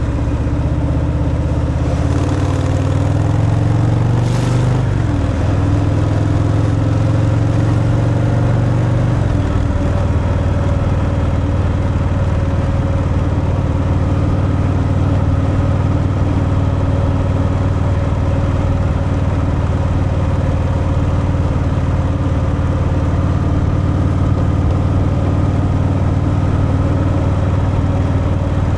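Harley-Davidson Fat Boy's V-twin engine on its stock exhaust, running under way. Its pitch rises and falls over the first ten seconds, then holds steady at cruise.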